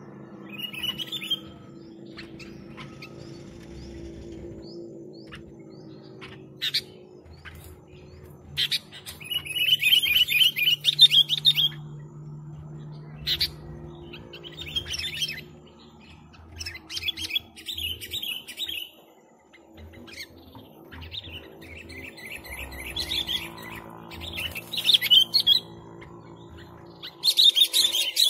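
Sooty-headed bulbul (kutilang) singing in full voice: short bubbly, warbling phrases repeated every few seconds, the longest and loudest about ten seconds in.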